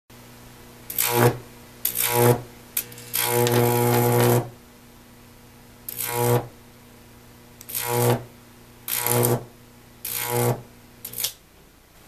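High-voltage arc from a microwave oven transformer, drawn between two bolts, buzzing loudly in about nine separate bursts, the longest lasting over a second about three seconds in. Between the arcs the transformer hums faintly.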